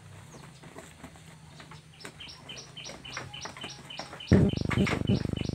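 A small bird chirping the same short high note over and over, about three times a second, from about two seconds in. About four seconds in, a louder, lower sound with a pulsing beat comes in over it.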